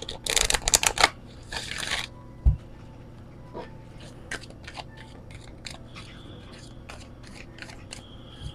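Large oracle-card deck being shuffled by hand: a fast, dense run of card flicks and riffling over the first two seconds, a soft thump, then scattered lighter card clicks as the cards are split and slid together.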